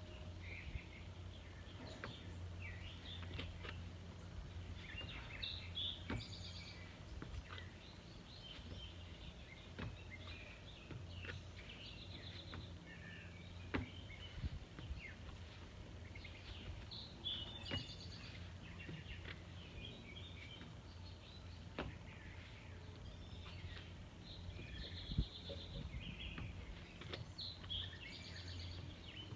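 Outdoor ambience of songbirds chirping and calling throughout, over a steady low hum, with a few sharp knocks at irregular moments.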